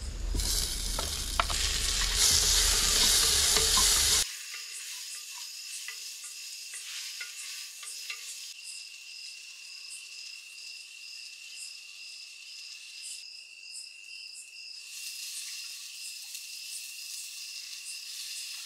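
Food frying and being stirred in a pot on a stove: a loud sizzle for about the first four seconds, then an abrupt drop to a quieter sizzle. The quieter part has light clicks and scrapes of the stirring and a thin, steady high tone.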